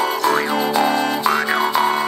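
Folk band playing an instrumental passage of a Latvian folk-song arrangement, with plucked strings over a steady drone. A repeated twanging sound sweeps up and down in pitch about once a second.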